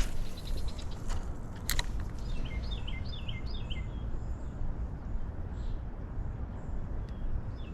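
A bird calling in a quick run of four high chirps about two and a half seconds in, starting again at the end, over steady low rumbling outdoor background noise. A single sharp click comes just before the first calls.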